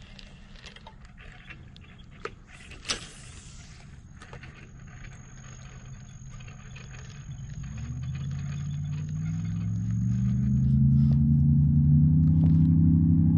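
Low rumble with two sharp clicks about two and three seconds in, then an engine grows steadily louder from about eight seconds in and holds loud and steady near the end.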